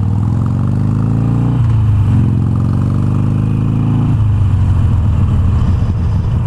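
Harley-Davidson Iron 883's air-cooled V-twin accelerating, its pitch climbing through the gears with two upshifts, about a second and a half in and about four seconds in, then running steadily.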